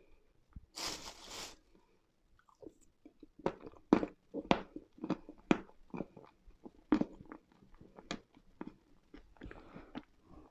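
Close-miked biting and chewing of dry edible chalk and clay: a string of sharp, crisp crunches, about one or two a second, as the lumps break between the teeth. A short hissing crumble comes about a second in, and a softer one near the end.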